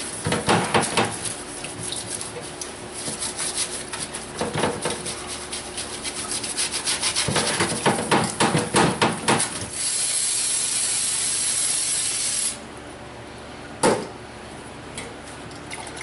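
A stiff brush scrubbing a stamped-steel automatic transmission oil pan in a solvent parts washer, in rapid back-and-forth strokes. About ten seconds in, a steady hiss runs for about three seconds. A single knock follows near the end.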